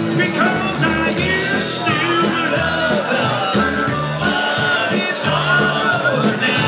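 Live band playing a rock-and-roll number on electric guitar, upright bass, drum kit and harmonica, with singing.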